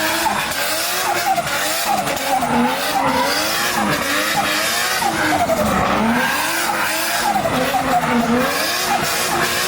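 Nissan RB25 straight-six engine revved hard, its pitch rising and falling over and over as the revs climb and drop, with tyres squealing under it.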